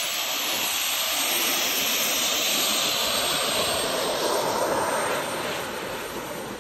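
Jet engine of a go-kart running at full thrust, a loud steady rushing hiss that fades as the kart pulls away near the end.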